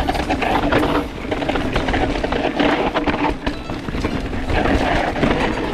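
Mountain bike rattling and clattering as it rides fast over a rough, loose dirt trail, with a steady low rumble underneath.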